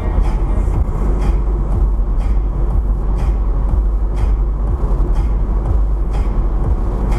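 Steady road and engine rumble inside a moving car, picked up by a dashcam, with irregular short knocks about once a second.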